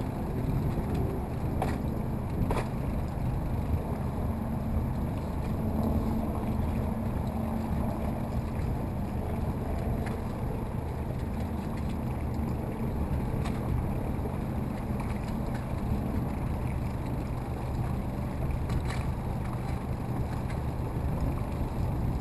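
Motorboat engine running steadily under way, with water and wind noise around the hull.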